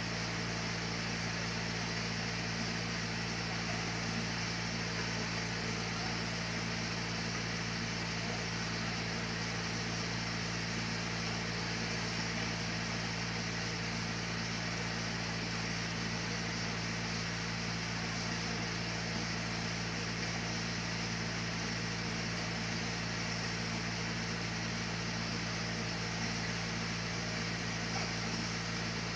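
Sawmill machinery running with a steady, even drone that does not change over the whole stretch.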